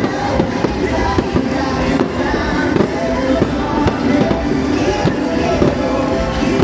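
Fireworks bursting in quick succession, many sharp bangs, over loud music.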